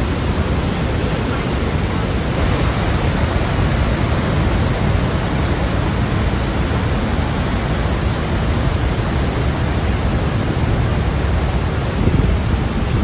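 Roar of Niagara's Horseshoe Falls: a loud, steady rush of plunging water, turning a little hissier about two seconds in.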